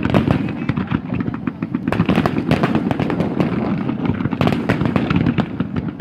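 Aerial fireworks display: a dense run of rapid crackling bangs, thickest about two seconds in and again near five seconds.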